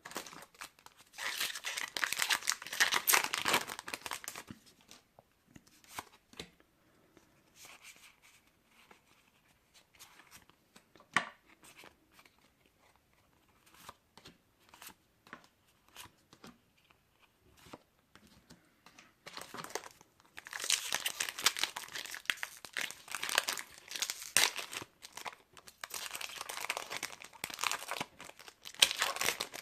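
Foil booster pack wrappers torn open and crinkled, in a burst about a second in and again for most of the last ten seconds. In between come faint, scattered clicks of cards being handled.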